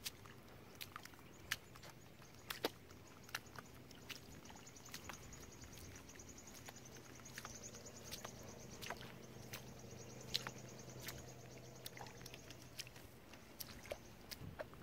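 Faint ambience on an exposed tidal mudflat: scattered sharp clicks and pops, a high, fast-pulsing buzz from about two to thirteen seconds in, and a low steady hum underneath.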